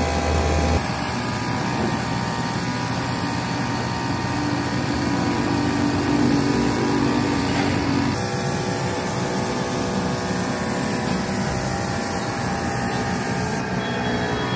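Compressed-air paint spray gun hissing steadily as it sprays, with a steady mechanical hum underneath. The sound shifts abruptly about a second in and again about eight seconds in.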